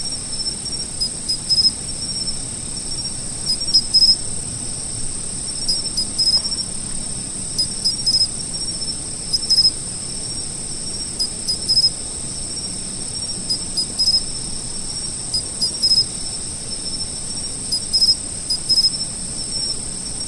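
Insects calling: a steady, unbroken high-pitched trill, with short sharp chirps over it in groups of two or three every second or two.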